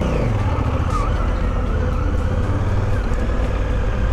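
Motorcycle engine running at low speed with road and wind noise; its note drops right at the start, then holds steady at low revs.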